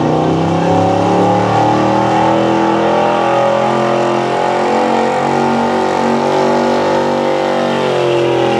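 Gas engine of a Chevrolet C/K 4x4 pickup running hard at high, held revs under heavy load while it drags a truck-pulling sled, the pitch wavering only a little.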